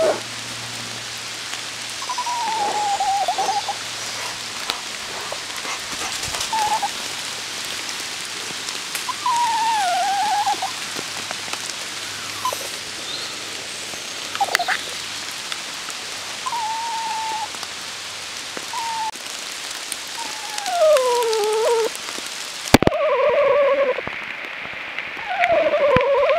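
Steady rain falling, with a dog whining in short cries every few seconds that slide up and down in pitch.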